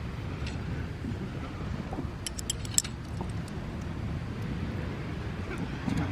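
A short run of light metal clinks, cooking gear knocking together, about two and a half seconds in, over a steady low rumble.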